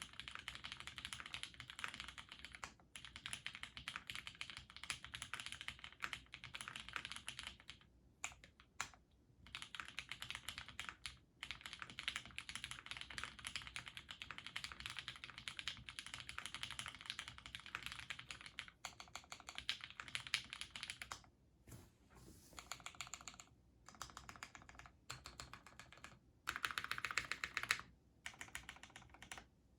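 Custom mechanical keyboard being typed on fast: Cherry retooled black linear switches, lubed with Krytox 205g0, in a plastic plate under GMK keycaps, giving rapid runs of keystrokes with a few short pauses.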